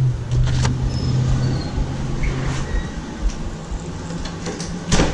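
A door being opened and someone stepping inside to fetch a cart: small clicks and handling noises over a steady low hum that fades out after two or three seconds, then one sharp knock near the end.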